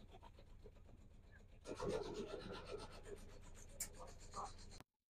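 Faint rubbing and scraping handling noise on a hand-held phone's microphone, louder from about two seconds in, then cutting off abruptly near the end.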